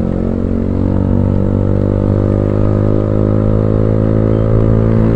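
Yamaha R15M's single-cylinder engine running at steady cruising revs through an aftermarket Akrapovic exhaust, heard from the rider's seat.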